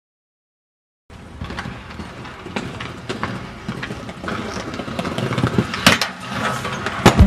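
Silence for about the first second, then inline skate wheels rolling over paving slabs with small clicks, growing louder. About six seconds in there is a sharp clack as the skates hit the metal bench for a grind, and another clack near the end.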